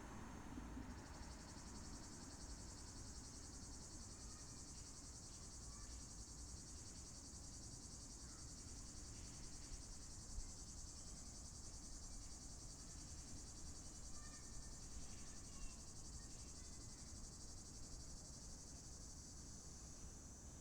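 Cicada buzzing as a steady high-pitched drone that sets in about a second in, over a low background hum of summer outdoor ambience.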